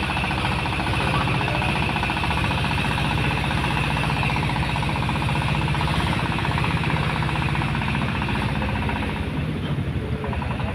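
Engine of a small wooden car-ferry boat running steadily with a rapid, even chugging, easing slightly near the end.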